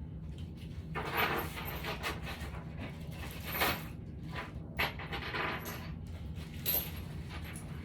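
Metal hand tools clinking and rattling against metal in several short bursts, over a steady low hum.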